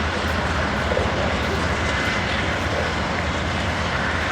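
Steady rumble and rush of an Amtrak California Zephyr passenger train rolling along, heard on board, with a low hum underneath.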